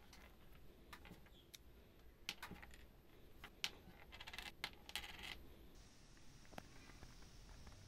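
Small wooden spoked toy wheels rolling and toppling onto a cutting mat: a series of faint, light clicks and taps, thickest in the middle, where a wheel wobbles and rattles down flat like a dropped coin settling.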